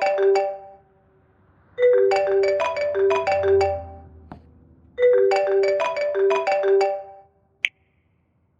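Mobile phone ringing with a marimba ringtone: the same short melody plays three times with pauses between, then a short click near the end.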